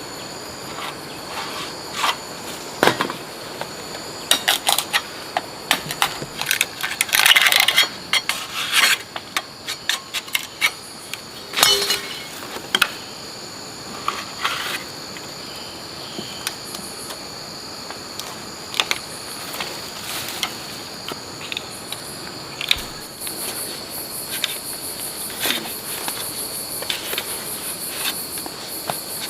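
Insects droning steadily in two high tones, with scattered sharp clicks and rustling handling noises over them, loudest about seven seconds in.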